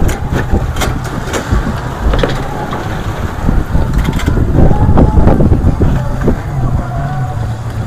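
A boat's outboard motor running steadily under loud wind rumble on the microphone, with scattered splashes of choppy water against the hull.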